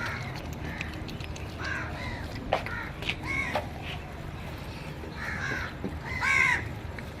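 Cat, likely a kitten, meowing again and again in short, high, arching calls, the loudest about six seconds in.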